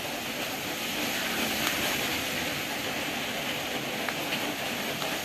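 Steady rain, an even hiss with a few faint clicks over it.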